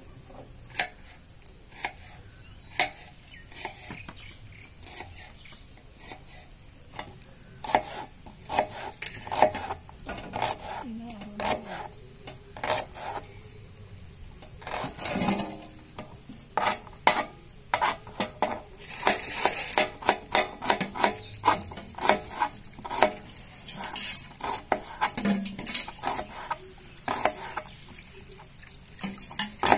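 Knife slicing a red onion on a plastic cutting board: a run of irregular clicks and taps as the blade cuts through and strikes the board, sparse at first and much quicker from about eight seconds in.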